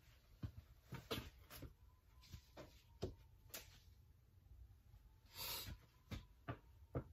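Faint, scattered clicks and knocks of small parts and tools being handled on a workbench, with a brief rustle about five and a half seconds in.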